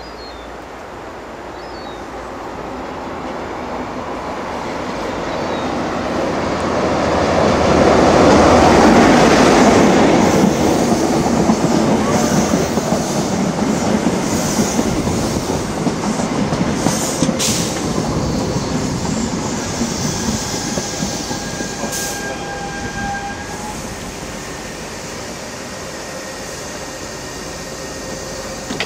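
InterCity 125 High Speed Train drawing into a station: the diesel power car's engine and wheels grow louder to a peak about eight to ten seconds in, then the Mark 3 coaches roll past more quietly as the train slows to a stand. Short high squeals from the wheels or brakes come in about two-thirds of the way through.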